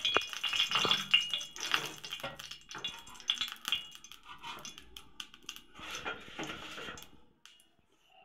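Metal kitchen utensils clinking and clattering against each other, with short metallic rings. It is busiest in the first couple of seconds, thins out, and stops about seven seconds in.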